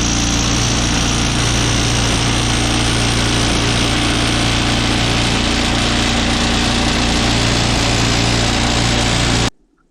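Woodland Mills HM126 bandsaw sawmill's engine running steadily at high throttle as the band blade cuts through a basswood log. The sound cuts off abruptly near the end.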